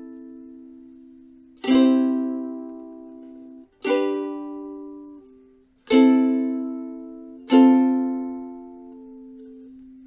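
GS 21 ukulele: four single chords strummed one at a time, each left to ring out and fade before the next, about two seconds apart.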